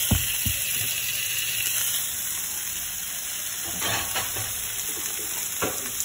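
NY strip steaks searing in olive oil in a hot frying pan: a steady sizzle. A couple of sharp clicks near the start.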